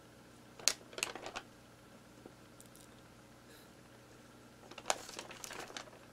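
Paper crinkling and rustling as a handwritten letter is handled, in two short crackly bouts, one about a second in and one near the end.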